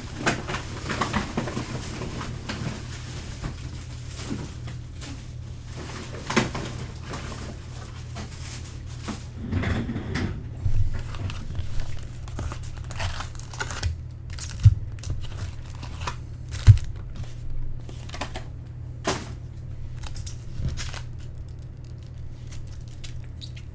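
Plastic and foil card-pack wrappers and box packaging crinkling, tearing and being pushed into a trash can, in irregular rustles. There are a couple of sharp knocks partway through, over a steady low hum.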